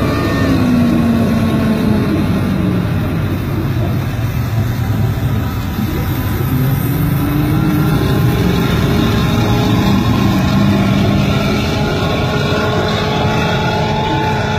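Duramax 6.6-litre V8 turbodiesel pickup engine under heavy load, pulling a weight-transfer sled. Its pitch drops over the first couple of seconds, then holds fairly steady with small rises as the pull goes on.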